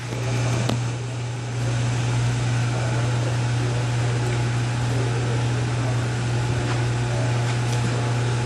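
A loud, steady, low mechanical hum, with a faint knock about a second in.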